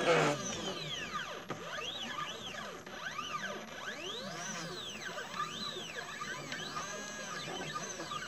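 Stepper motors of a CNC 2418 laser engraver whining as the head moves, each tone rising and falling in pitch as the axes speed up and slow down, several overlapping. A brief burst of noise right at the start.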